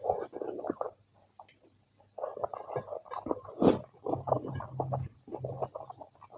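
Close-miked chewing of a hand-fed mouthful of rice and kidney-bean curry, with wet mouth noises. It stops for about a second after the first second, then runs dense again, with one sharp loud click a little past the middle.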